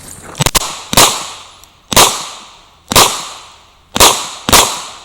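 Revolver being fired in a timed course of fire: about six sharp shots, the first about half a second in, then roughly one a second, with the last two fired close together near the end.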